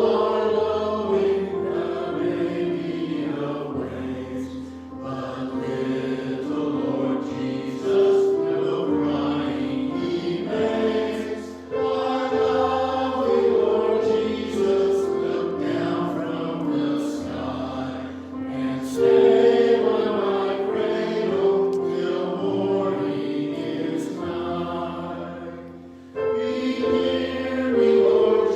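A choir singing with sustained notes, in long phrases with short breaks between them.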